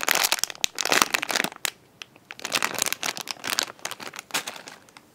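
Crinkling and rustling as a squishy toy is handled, in two spells with a short pause about two seconds in.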